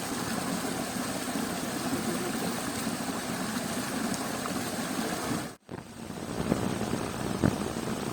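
Creek water running steadily, broken off for a moment about five and a half seconds in, with a couple of short sharp knocks near the end.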